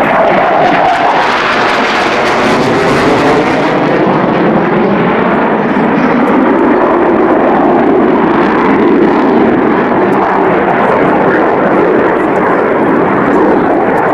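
Jet noise of a Panavia Tornado GR1 flying its display: a loud, steady rush from its twin turbofans. It is brightest and hissiest in the first few seconds, then duller as the jet draws away.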